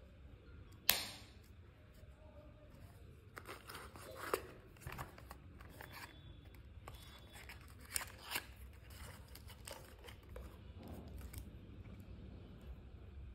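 Small handling noises from unboxing earbuds: a sharp click about a second in, then scattered light clicks and rustling as a small cardboard accessory box is opened and a charging cable is taken out, with two more clicks a little past halfway.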